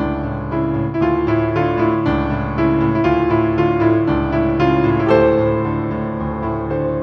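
Solo piano playing a slow original piece meant to rock back and forth like a sailing boat, notes struck in steady succession over sustained lower notes.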